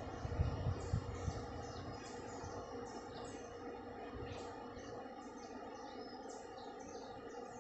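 Wild birds chirping: many short, high notes that sweep downward, repeated throughout. A few low thumps in the first second or so are the loudest sounds.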